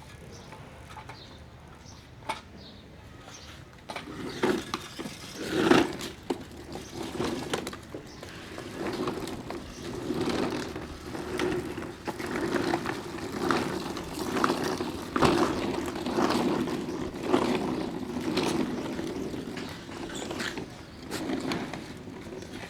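Bicycle being ridden on a rough path, its tyres rolling with a steady, uneven rumble and scattered clicks and knocks, starting about four seconds in.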